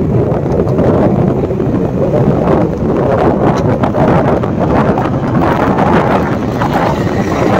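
Wind buffeting the microphone of a rider on a moving mountain bike, mixed with the bike's steady jolting and rattling over rough ground.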